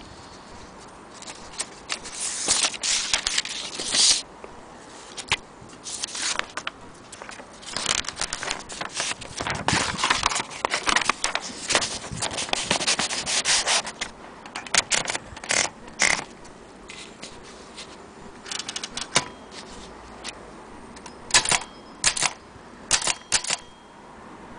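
Mechanism of an old Corona typewriter being worked by hand: irregular runs of clicks, rattles and scrapes, with a quieter pause about two-thirds of the way through.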